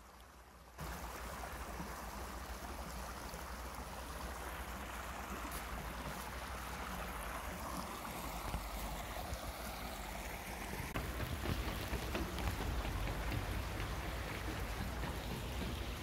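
Small woodland stream running over a low step of stones: a steady rushing of water that starts abruptly about a second in, with a low rumble underneath.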